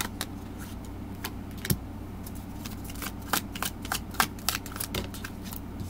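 A tarot deck being shuffled by hand: a quick, irregular run of card clicks and flicks, several a second, over a low steady hum.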